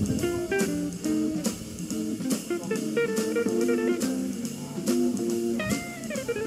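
Background music: a bluesy guitar tune with bending notes over a steady drum beat.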